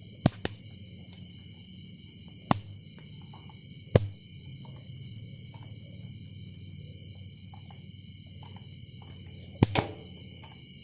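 Electric mosquito swatter running on a freshly fitted 18650 lithium cell, button held: its high-voltage circuit gives a steady high-pitched whine, broken by about six sharp zapping snaps of sparks across the grid. It shows the swatter working on the new battery.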